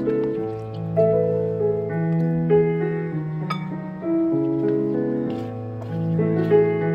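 Background piano music: a gentle melody of held notes over slow, changing chords.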